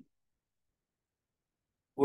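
Near silence: faint room tone between spoken phrases.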